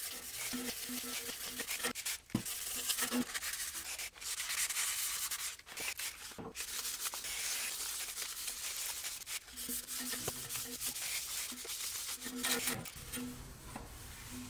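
Wet sandpaper, around 1500 grit, rubbed back and forth over the painted steel strut tower in a car's engine bay, with short pauses between passes. It is wet-sanding down a rough spray-paint blend line to smooth it out.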